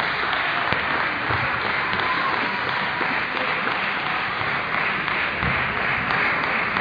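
Steady din of a large sports hall with table tennis being played at several tables: an even wash of noise with faint, scattered clicks of balls being hit.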